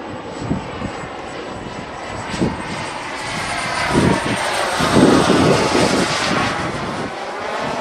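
Model jet turbine engine of a Skymaster BAE T-45 Goshawk RC jet running in flight. It gets louder about halfway through as the jet makes a low pass.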